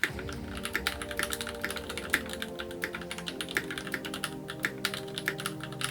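Fast typing on a mechanical keyboard fitted with lubed vintage black (linear) switches, several keystrokes a second, over background music.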